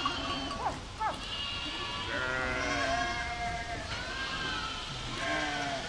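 Several goats bleating, their calls overlapping one another, with a few short rising-and-falling calls about a second in.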